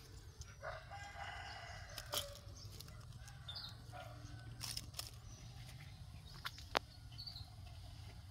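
Faint, distant domestic fowl calling, with a few light clicks and rustles as a hand moves through the bonsai's leaves.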